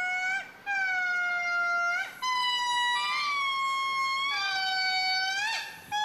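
A lemur giving a series of long, wailing calls, each held on a steady pitch for about a second and a half and ending in a quick upward flick. The calls break briefly about half a second in, at two seconds and near the end, and the pitch steps up from one call to the next in the middle.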